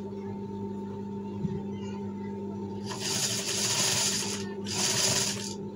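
Industrial sewing machine stitching in two short runs, the first about three seconds in and a shorter one near the end, over a steady low hum.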